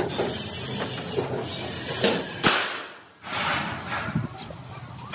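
Heavy steel sections and plates clanking as they are handled and set down: a sharp metal knock at the start and a louder ringing clank about two and a half seconds in, then a few lighter knocks.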